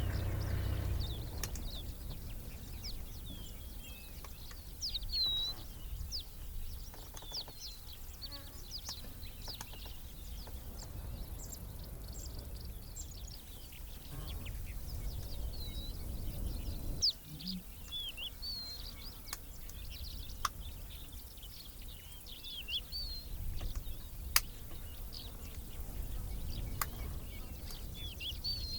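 Savanna birds calling with many short, high chirps and twitters scattered throughout, over a low steady rumble of wind.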